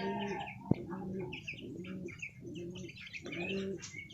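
Birds calling: a low cooing call repeats about once every 0.7 seconds, with short high chirps over it and a single sharp click about 0.7 seconds in.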